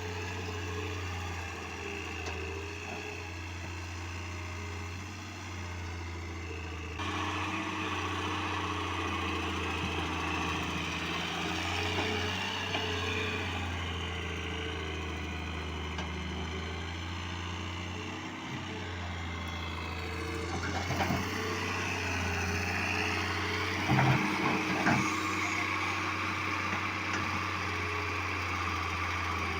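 Heavy earthmoving machinery engine running steadily with a low hum. The sound changes abruptly about a quarter of the way in, and a few sharp knocks come about four-fifths of the way through.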